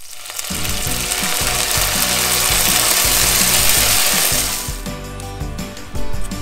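Background music with steady, changing bass notes, covered for the first four and a half seconds or so by a loud, even hiss that then cuts off, leaving the music.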